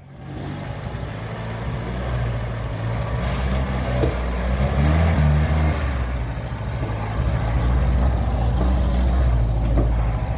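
Engine of a UAZ 469-type off-roader working hard under load as it drives through deep mud. It grows louder over the first few seconds, then runs steadily loud.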